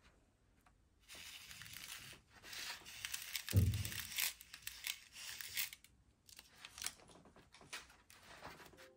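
Small foil sachet being torn open and crinkled, then tipped and shaken to pour candy toppings out, with crackly rustling throughout and one dull thump midway.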